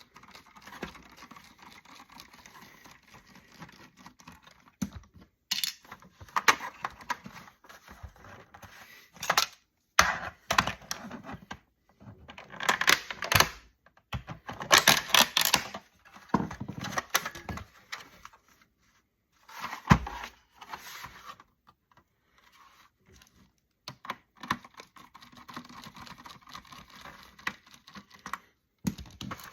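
Hand tools prying and working at a plastic router housing: irregular clicks, snaps, rattles and scraping, coming in short clusters with brief pauses.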